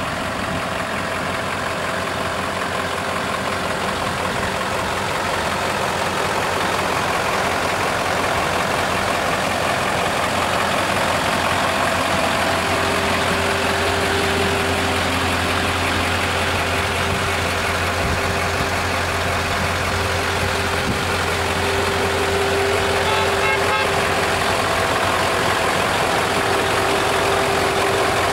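Scania truck's diesel engine idling steadily.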